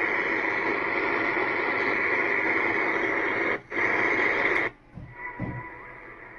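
Static hiss from the speaker of a 1970s JVC Nivico 9427S radio cassette recorder, tuned on the medium-wave band between stations. The hiss cuts out briefly a little past three and a half seconds. A second later it falls away to a fainter hiss with thin steady whistles.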